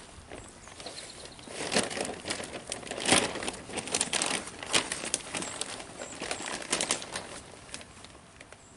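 A plastic bag of raised bed soil crinkling and rustling as it is handled, in irregular bursts, the loudest about three seconds in.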